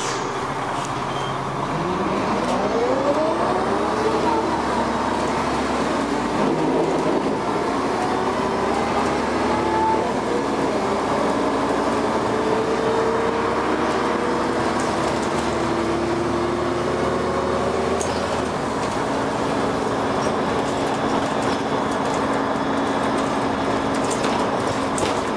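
Dennis Arrow double-decker bus running and accelerating. A whine from the engine and ZF gearbox rises in pitch several times over a steady drone of engine and road noise.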